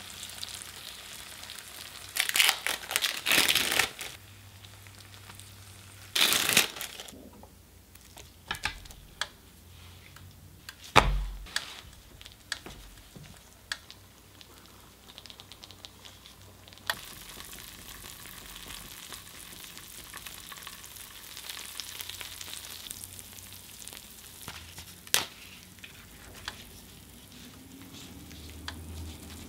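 Sliced meat sizzling on the hot nonstick plates of a Black+Decker 3-in-1 sandwich maker, the hiss swelling into loud bursts in the first several seconds. Then scattered clicks and taps of utensils, with a dull knock about eleven seconds in.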